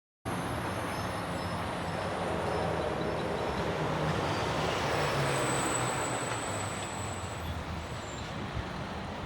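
Freight train passing on the track: steady rolling noise of wheels on rail that builds to its loudest about halfway through and then slowly eases, with a thin high wheel squeal about six seconds in.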